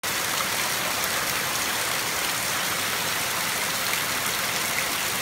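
Heavy rain pouring down steadily, a constant dense hiss of rain on the ground and surfaces.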